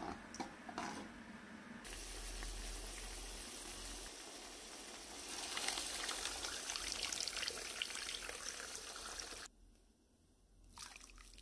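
A spoon scrapes briefly in a pot of tomato paste, then boiling water is poured into the pot in a steady splashing stream. The pour grows louder partway through and stops suddenly near the end.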